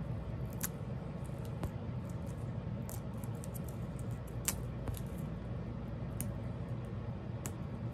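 Fingers picking and peeling at a tiny plastic LOL Surprise doll capsule, making scattered faint clicks and crackles.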